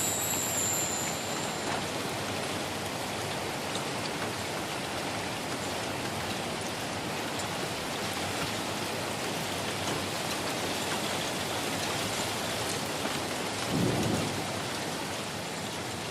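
Steady heavy rain falling, a constant even hiss. Near the end a short low rumble of thunder swells and fades.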